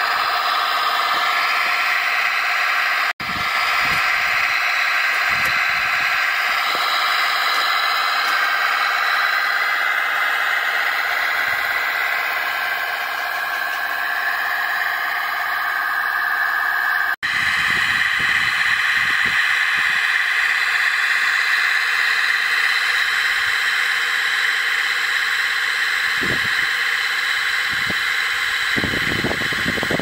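RC model tractor's Benedini sound module playing a diesel tractor engine through a small onboard speaker, running steadily with slight rises and falls in pitch. It cuts out for an instant twice, and a few low thumps come near the end.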